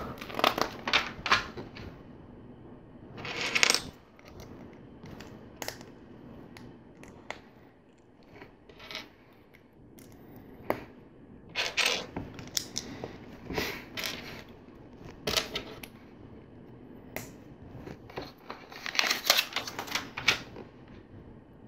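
Plastic LEGO plates and small parts clicking and snapping together in the hands, with scattered sharp clicks and a few short rattling bursts of pieces being handled.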